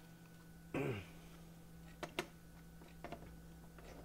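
A few light, sharp clicks and taps of a small plastic non-contact voltage tester being handled, over a steady low electrical hum, with a brief murmur from a man's voice about a second in.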